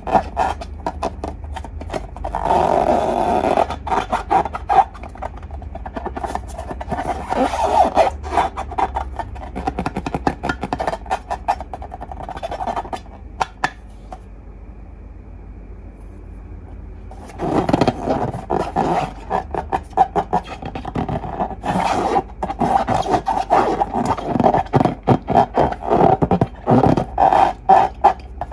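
Slime and long rubber balloons being handled: dense, wet crackling and squelching with rubbery squeaks. The sound dies away for a few seconds about halfway through, then starts again.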